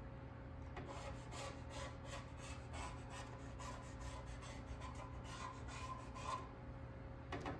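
Faint, quick scraping strokes of hand work on sheet metal, about four a second, which stop a little after six seconds in. A steady low hum runs underneath, and a couple of sharp knocks come near the end.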